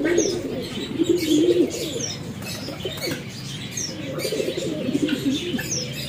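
Pigeons cooing in two spells of low, wavering calls, with short high falling chirps from another bird about every second and a half.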